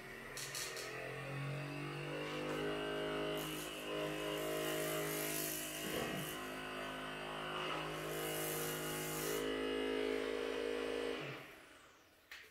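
TEQStone percussive massage gun's motor running with a steady buzz, rising in pitch over the first second or two as the speed goes up, then holding steady. The sound wavers briefly about halfway through as the head is pressed against a forearm, and the motor switches off about eleven seconds in, winding down.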